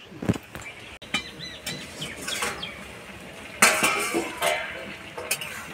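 Metal cookware clinking and clattering: a steel plate lid and utensils knocking against a metal karai of boiling taro stalks, with the loudest clank a little over halfway through.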